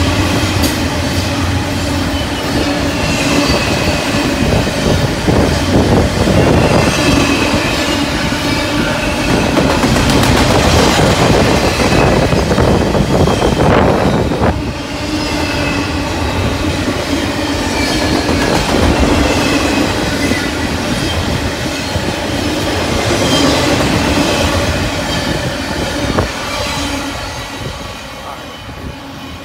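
BNSF double-stack intermodal freight train rolling past: a steady rumble of the well cars with wheels clacking and thin, wavering wheel squeal. The sound falls away near the end as the last cars pass.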